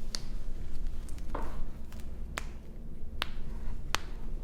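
Toe joints cracking during a chiropractic toe adjustment: several sharp pops, about a second apart.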